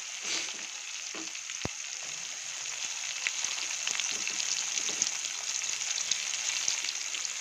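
Freshly added sliced onions frying in hot oil in a metal kadai: a steady sizzling hiss dotted with fine crackles, with one sharp knock about a second and a half in.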